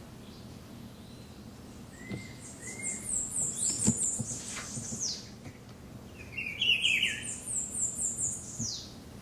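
Songbird singing: two high, thin phrases of rapid stepped notes, each ending in a falling slur. A few lower whistled notes come between the phrases.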